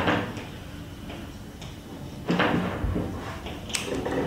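Felt-tip marker writing on a whiteboard: short scratchy, squeaky strokes at irregular intervals, with a louder stroke about halfway through.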